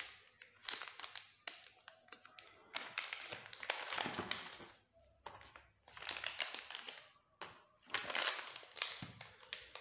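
Plastic and foil anti-static component bags crinkling as they are handled, in about four bursts of crackly rustling with short pauses between.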